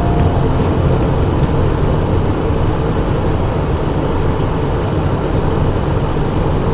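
Steady cabin noise inside a Cessna Citation business jet on final approach: a mix of airflow and turbofan engine noise, even and loud throughout.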